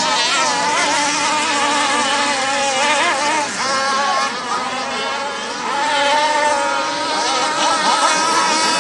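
Racing boat engines running hard at high revs as a boat speeds past, their pitch wavering up and down.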